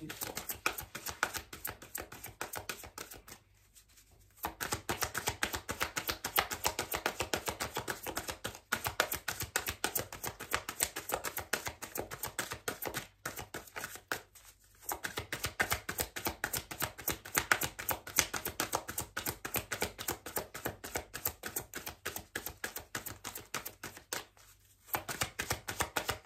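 A deck of tarot cards being shuffled by hand: a long run of quick papery card flicks and slaps, stopping briefly a few times, about four seconds in, around fifteen seconds and near the end.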